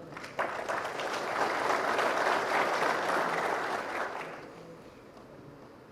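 Audience clapping. It starts about half a second in, swells, and dies away after about four seconds.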